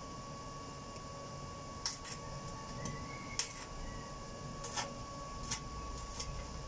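Arc welder's electrode being struck on a steel grille: about five brief crackles of the arc, a second or so apart, each catching only for a moment rather than running as a steady bead.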